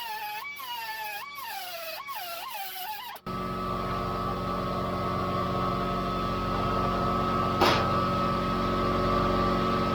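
Background music for about three seconds, then a power tool cutting sheet metal starts abruptly and runs steadily with a whine, for a rough cut of a patch panel. A single sharp click near the end.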